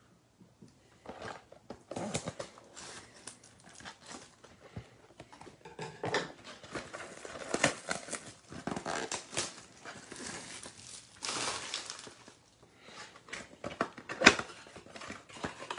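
Plastic shrink-wrap being torn off and crinkled as a trading-card box is unwrapped and opened by hand, with irregular rustling and crackling and a sharp snap near the end.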